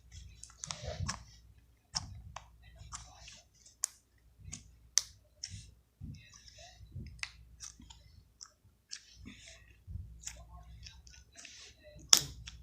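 Stretchy, jiggly slime squeezed and worked by hand, giving irregular sharp clicks and pops with soft crackly squishes between them; the loudest pop comes near the end.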